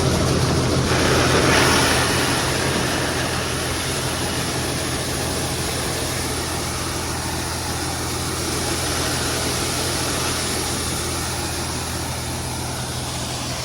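Engine idling steadily as it warms up after a reluctant start. It runs a little louder for the first couple of seconds, then settles.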